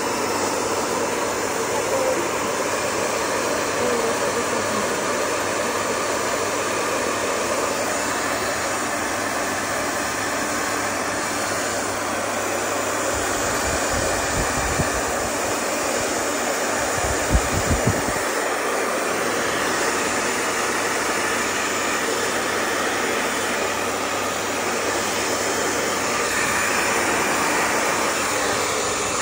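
Handheld hair dryer blowing steadily, drying a dog's coat after its haircut. A few dull low bumps come about halfway through.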